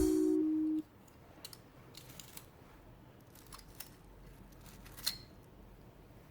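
Background music ends under a second in, then a few faint, scattered clicks and taps of small repair tools handling the phone, the sharpest about five seconds in.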